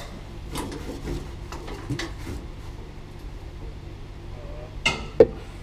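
Faint scattered metal knocks and clinks as a heavy pipe wrench is fitted onto a steel sprinkler pipe, over a steady low hum. A single sharp clank near the end is the loudest sound.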